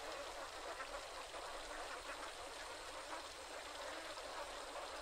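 A large flock of domestic ducks quacking, many calls overlapping into one steady, continuous din.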